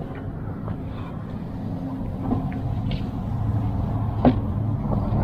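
An engine running steadily, a low hum that grows slightly louder, with a single knock about four seconds in.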